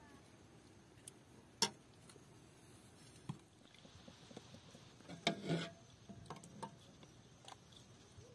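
Metal ladle clinking against a steel pot and a glass jar as thick fig jam is ladled into the jar: a few sharp clinks, the loudest about a second and a half in and again about five seconds in.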